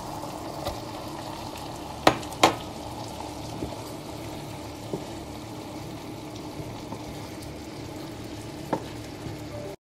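Okra and tomato sauce simmering in a frying pan while raw shrimp are stirred in with a wooden spoon, over a faint steady hum. Two sharp knocks about two seconds in and a lighter one near the end.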